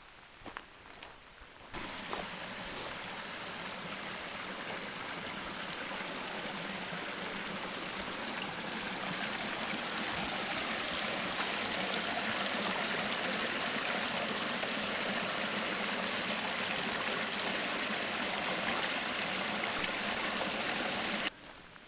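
Footsteps on a dirt trail, then, about two seconds in, the steady rush of a small creek running over rocks takes over, growing slightly louder before cutting off abruptly near the end.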